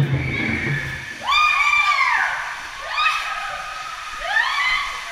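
People whooping and screaming on a water slide: three long, high rising-and-falling whoops about a second and a half apart, over water sloshing down the chute.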